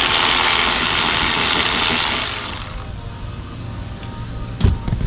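A power tool runs for about two seconds, backing out a hardtop roof bolt, then stops, leaving a low hum, with a single knock near the end.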